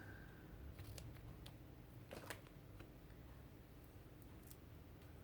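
Near silence, with a few faint, short clicks and rustles of washi tape and paper being handled.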